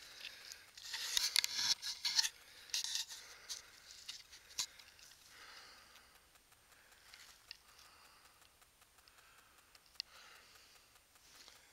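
Rustling and scraping of a handheld phone camera rubbing against clothing and rock while scrambling over gritstone boulders, with scattered sharp clicks. The rustle is loudest about one to three seconds in, then fades to faint rubbing.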